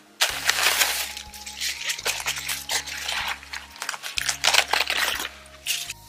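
Leaves and stalks of garden vegetable plants rustling close up in several bursts as they are picked by hand, over background music with a steady low bass line.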